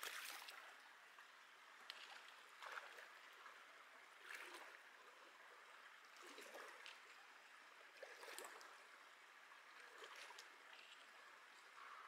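Faint rush of a swollen, rain-flooded creek, with soft splashes every second or two as a person wades through the icy current with trekking poles.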